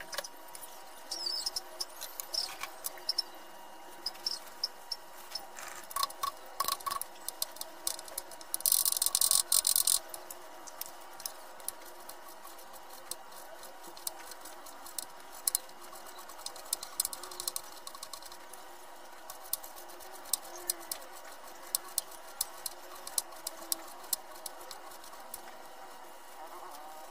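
A kitchen knife cutting raw pork belly on a wooden cutting board: sharp knocks of the blade on the board at irregular intervals, coming quicker in the second half. A louder, dense burst of clatter comes about nine seconds in.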